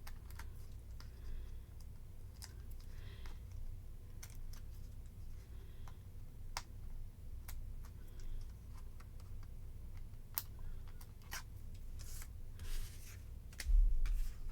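Paper-crafting handling sounds: small ticks, scratches and rustles as backing paper is peeled off adhesive foam dots and the dots are pressed onto thin cardstock, with a dull thump near the end.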